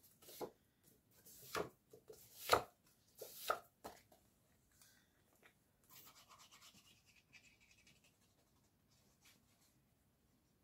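Paper and cardstock being handled on a crafting board: a handful of sharp taps and paper rustles in the first four seconds, then faint rubbing.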